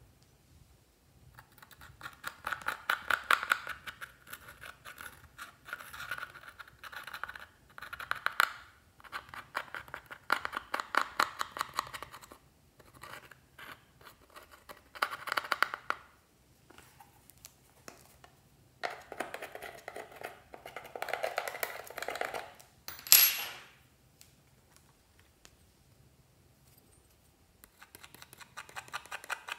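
Thin metal tool scratching and scraping pressed eyeshadow out of the pans of a metal palette, breaking the powder into crumbs in runs of quick strokes. A brief sharp high scrape stands out as the loudest sound about three-quarters of the way in.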